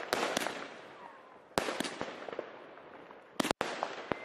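Fireworks bursting overhead: a series of sharp bangs, with a thick cluster about three and a half seconds in, over a steady crackle and hiss of burning stars.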